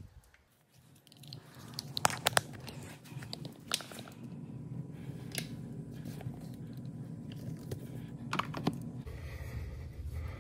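Aluminum foil tape being torn and pressed around a refrigerator water-line hose joint, with crinkling and several sharp clicks over a low steady rumble.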